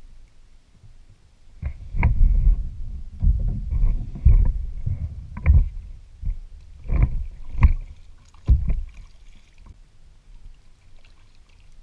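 Kayak being paddled: a run of irregular paddle strokes with splashing and knocks. It starts about two seconds in and stops about nine seconds in.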